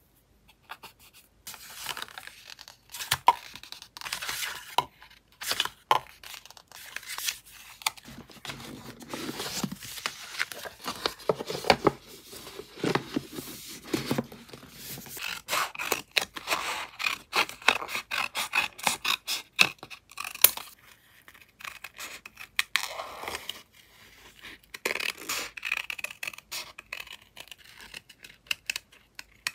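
Close-up paper handling in collage work: sheets of paper scraping, rustling and clicking against a journal page, with many small sharp clicks. Near the end, scissors snip through paper.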